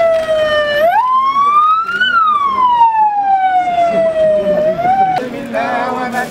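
A vehicle siren wailing, one pitched tone sliding slowly down, climbing again about a second in, then sliding slowly down once more. Near the end it gives way to voices.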